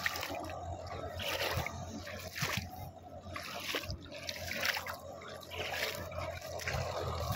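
Faint, distant tractor engine running steadily as it works a flooded paddy field, under a rushing, splashy noise that swells and fades every second or so.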